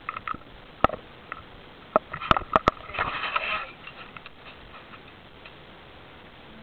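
Handling noise from a handheld camera being moved about: one sharp knock about a second in, a quick run of four clicks or knocks around two and a half seconds in, then a short rustle.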